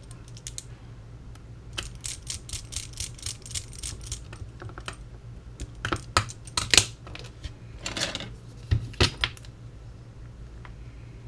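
A run of irregular sharp clicks and taps, denser in the first half and loudest in a few strong clicks in the second half, over a steady low hum.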